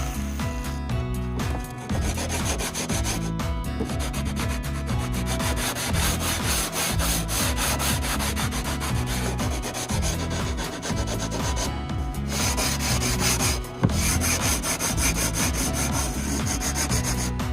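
Hand sanding of a wooden board: a rapid, continuous rasping scrape, with background music underneath.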